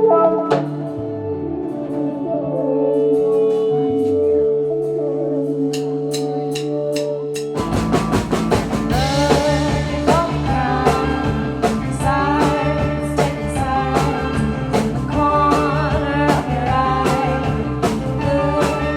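A live band playing: held sustained notes over sliding bass notes, then about seven and a half seconds in the whole band comes in with drums beating steadily.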